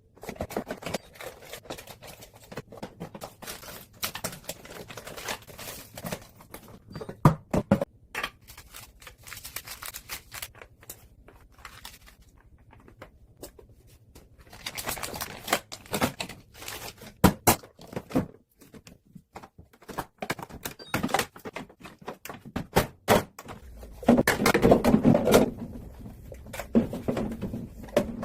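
Household cleaning and handling sounds: an irregular run of clicks, knocks and light clatter as items and containers are moved about a refrigerator, with a longer rustling or scraping stretch near the end.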